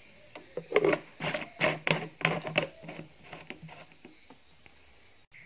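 A quick run of hard plastic clicks and knocks, about a dozen in the first three seconds, from the blue plastic tank and yellow cap of a CBA electric backpack sprayer being handled and pressed shut. Then the clicking stops.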